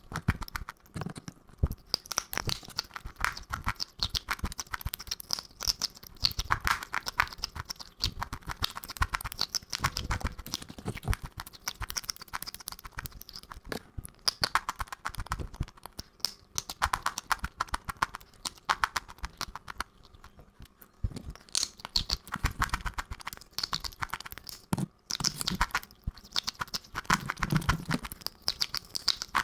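Fast crunching and chewing of crunchy food: a dense run of crisp cracks, with brief pauses now and then.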